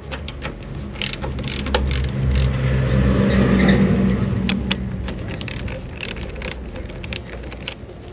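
Ratchet wrench with a 10 mm socket clicking irregularly while loosening the battery terminal nut, over a low steady hum that swells in the middle.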